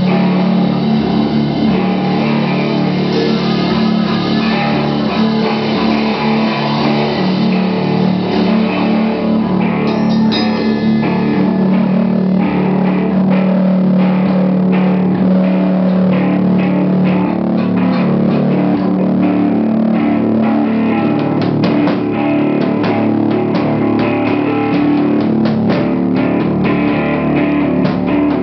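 Stoner rock band playing an instrumental passage live: sustained guitar notes over bass, with drum kit and cymbal hits growing more frequent through the second half.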